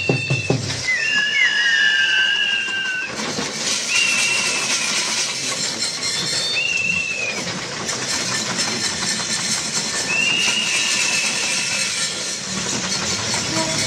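Onlookers whistling at the straining bullocks: a string of sharp, high whistles, each held for about a second with a slight rise and fall, two at once near the start and others every few seconds, over a steady hiss of background noise.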